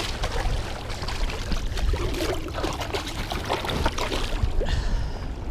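Water lapping and sloshing against shoreline rocks, with a steady low rumble underneath and small scattered ticks.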